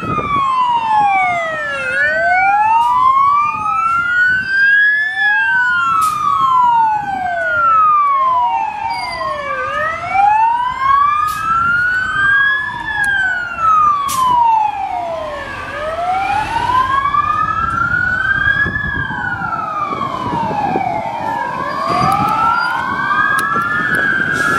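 Fire and Rescue NSW fire engines' sirens on a slow wail, two sirens rising and falling out of step with each other, over the rumble of the trucks' engines.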